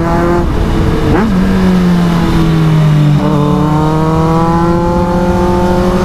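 Kawasaki Z800's inline-four engine under way on the road. About a second in, a quick rev swing marks a gear change. The engine then runs at a steady pitch, and from about three seconds in it pulls again with revs slowly rising.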